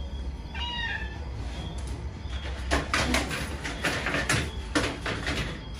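A cat meows faintly once, about half a second in. It is followed by a run of clicks, knocks and rustling as groceries are handled out of a paper bag.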